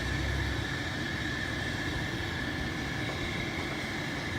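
Forklift engine running steadily with a low rumble and a constant hum while it holds the load.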